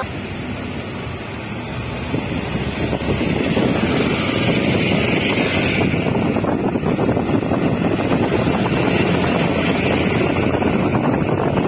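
Wind rushing over the microphone and tyre and road noise from a moving car on a wet road, growing louder about three seconds in.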